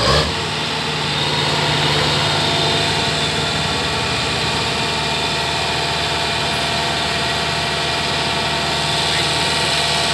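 Kubota DC105X combine harvester's diesel engine running steadily while the machine stands parked, with a short knock at the very start.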